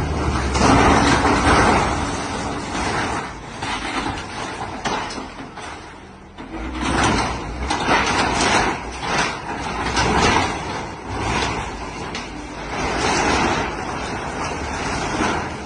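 Heavy demolition machinery clearing structures: a diesel engine rumbles under repeated loud scraping and crashing surges of metal and debris being pushed and torn away, with a brief lull about six seconds in.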